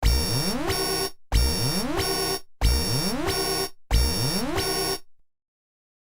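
Nokia 5330 XpressMusic stock alert tone: a short electronic chime opening with an upward sweep, played four times about 1.3 seconds apart, then stopping.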